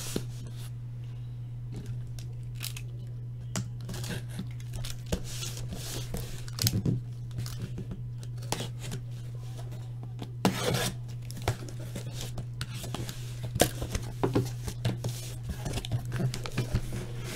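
Box cutter slicing the packing tape on a cardboard shipping case, with irregular scrapes and knocks as the cardboard is handled and opened. A steady low hum runs underneath.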